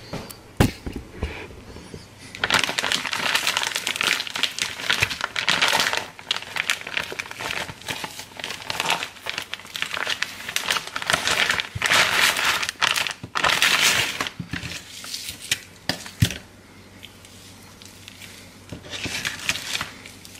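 Plastic food bag crinkling and rustling in bursts as it is opened and handled, with a sharp knock shortly after the start and another about three-quarters of the way through.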